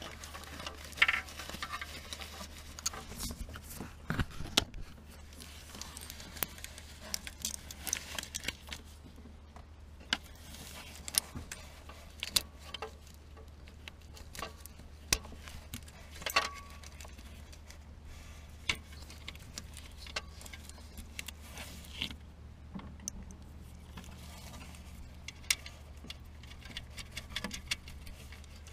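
Hand tools and small metal parts clicking and clinking in irregular taps while the alternator's live wiring is disconnected, over a steady low hum.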